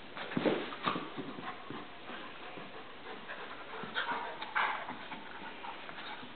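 Two dogs, a Great Pyrenees and a Great Pyrenees/Blue Heeler mix, play-wrestling: panting and scuffling, with short louder bursts about half a second in and again around four seconds in.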